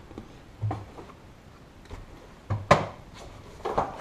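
Hard plastic body panels and push-in fasteners on a UTV being knocked and pressed by hand: a dull thump under a second in, a sharp plastic knock a little before three seconds, and a couple more knocks near the end.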